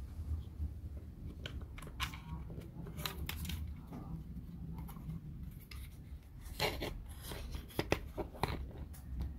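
Small laser-cut plywood puzzle pieces being handled and worked: scattered light clicks and short scraping, snipping sounds, busiest a couple of seconds in and again from about two thirds of the way through.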